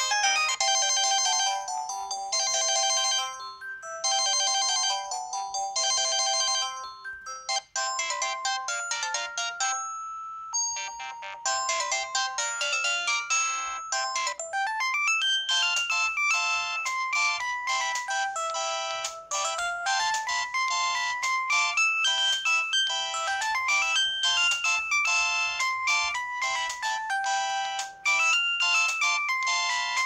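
Samsung SGH-C520 flip phone playing its polyphonic Yamaha SMAF ringtones as they are previewed from the menu: one synthesized tune with a figure repeating about every second and a half, a few brief snatches of other tones, then a longer melody from about a dozen seconds in.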